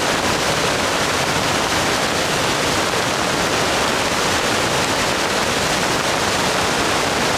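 Rushing floodwater in a swollen creek, mixed with heavy rain: a loud, steady rush of water that does not let up.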